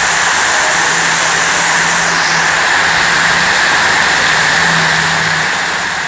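Water curtain pouring down in a loud, steady rush of falling, splashing water, fading out near the end.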